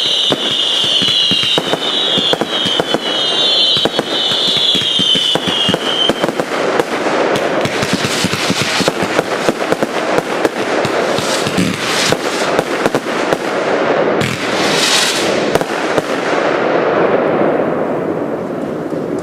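Consumer fireworks finale: dense rapid crackling and popping with bangs, and for the first six seconds high shrill whistles that fall in pitch again and again. The barrage thins out near the end.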